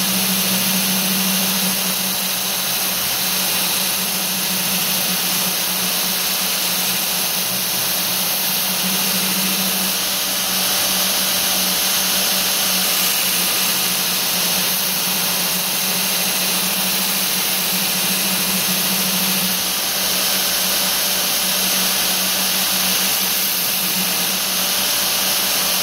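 Belt grinder running with a steady motor hum while a quarter-inch steel knife blade is pressed against the abrasive belt over a 10-inch contact wheel, giving a continuous even hiss of steel being ground: the last passes of roughing out a hollow grind.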